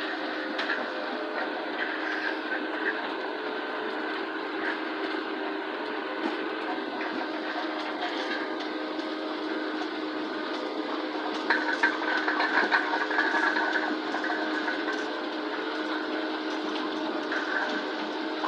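ROPA sugar-beet cleaner-loader running steadily: its engine and conveyors hum while beets rattle over the pickup table and up the elevator conveyor. The clatter of beets grows louder for a few seconds past the middle.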